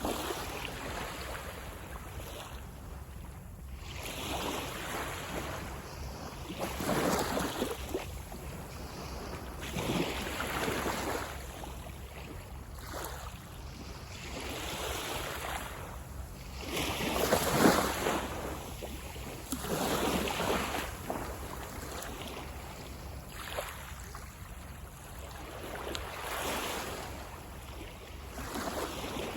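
Small waves breaking and washing up a beach, a new wash every few seconds, the biggest about two-thirds of the way through, over a steady low rumble of surf.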